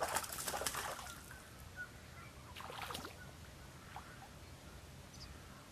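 Water splashing at the river's edge in two bursts, the first lasting about a second and the second shorter, about three seconds in.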